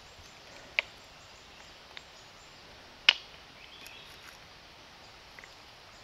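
Steady outdoor background noise with a few sharp clicks or knocks, one about a second in and the loudest about three seconds in.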